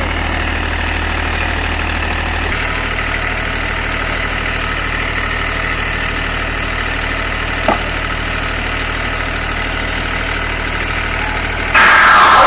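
Diesel generator running steadily at idle just after being started, with a brief click partway through. Just before the end, a much louder pitched sound from the sound-system speakers cuts in.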